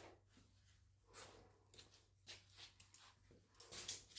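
Near silence: faint room tone with a steady low hum and a few soft, brief sounds.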